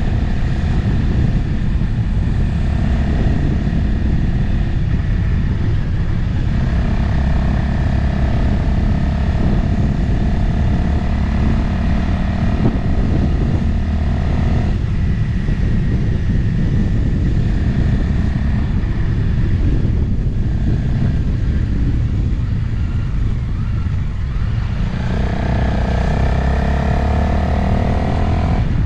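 Motorcycle engine running under way, heavy wind noise on the microphone. The engine note changes a few times as the revs change.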